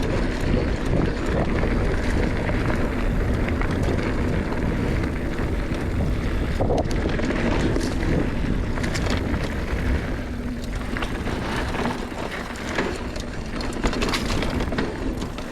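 Mountain bike riding along a dirt trail: steady tyre and drivetrain rumble with small knocks and rattles, and wind buffeting the camera microphone.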